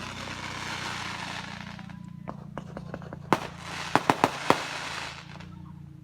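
Fireworks going off: a crackling hiss for several seconds, then a quick string of sharp bangs about three to four and a half seconds in.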